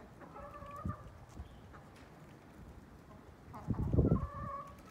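Chickens clucking in a backyard flock: one drawn-out call just after the start and another about three and a half seconds in, with a burst of low thumping noise under the second call, the loudest sound.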